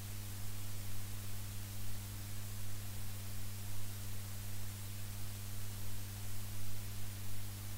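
Steady electrical hum with a faint even hiss: the background noise of a recorded radio broadcast, with no speech.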